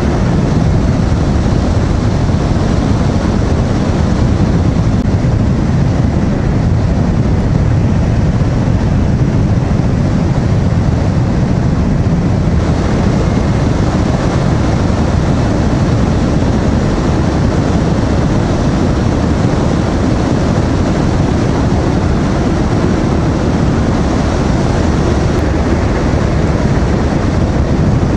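Steady rush of wind and riding noise from a Honda VTR250 motorcycle cruising at about 70 km/h.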